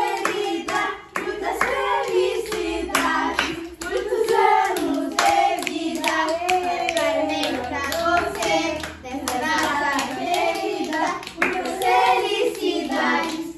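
Children singing a birthday song together while clapping their hands in time.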